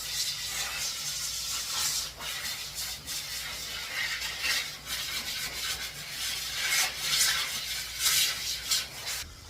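Irregular rubbing and scraping sounds, louder in the second half, over a low steady hum that cuts off near the end.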